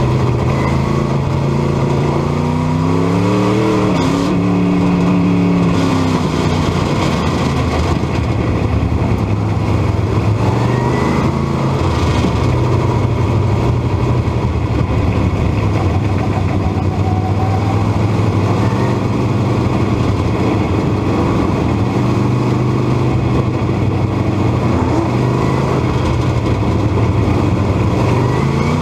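Dirt modified race car's V8 engine at racing speed, heard from inside the cockpit. Its pitch climbs on the straights and drops back as the throttle is lifted for the turns, several times over.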